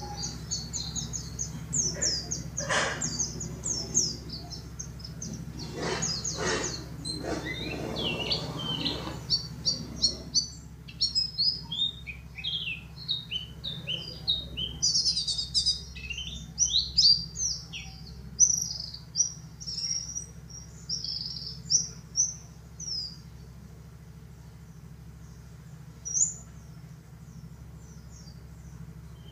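White-eye (pleci dakun) song: rapid, high, twittering chirps that come densely for about the first ten seconds, then in broken phrases, and only now and then after about 23 seconds.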